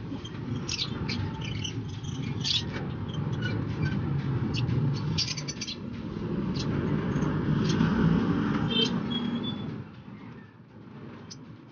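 African lovebirds in wire breeding cages making short, high chirps over a steady low rumble, mixed with clinks and rattles of feed cups and cage wire as the birds are being fed. The rumble drops away about ten seconds in.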